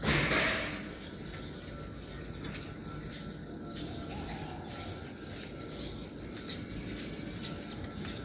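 Outdoor ambience of birds chirping over a steady hum of insects and a low background rumble. A brief loud whoosh of noise comes right at the start.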